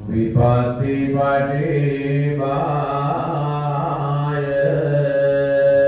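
A man's voice in Buddhist chanting, in long held notes that step in pitch a few times. It sets in suddenly and loud, with no drumming.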